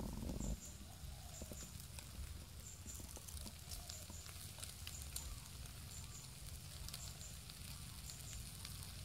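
Charcoal crackling faintly with scattered small pops under meat grilling in a wire basket, after a brief louder rustle at the very start. A short high double chirp repeats about once a second over a low rumble.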